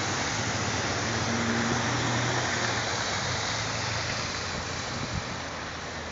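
Steady rushing noise, with a low hum during the first few seconds and a single click about five seconds in.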